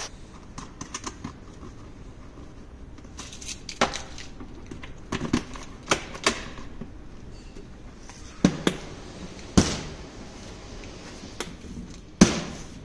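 Scattered plastic and metal clicks and clatters as a scooter top-case lock is handled and fitted into the plastic top box, with keys rattling. Near the end comes one loud, ringing knock as the hard plastic top box is set down onto its base.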